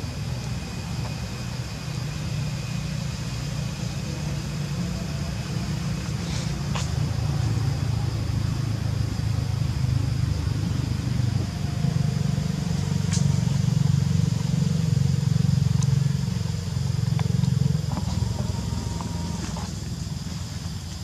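Outdoor ambience: a low rumble that builds toward the middle and eases off near the end, under a steady high insect drone, with a few short clicks.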